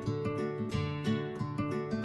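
Background music: a light tune of quick, repeated plucked notes.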